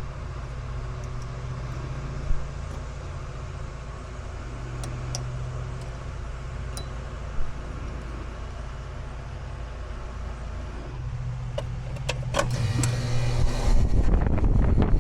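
Bryant R410A central air-conditioner condenser running with a steady electric hum, its capacitor newly replaced after it failed. A few sharp clicks sound over it, and a louder rushing noise builds near the end.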